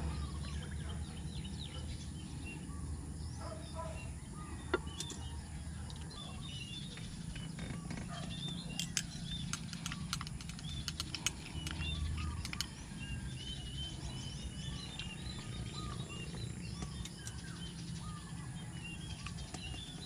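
Small birds chirping steadily in the background. In the middle stretch comes a quick run of light clinks, a spoon stirring milk into a cup of coffee and knocking against the cup.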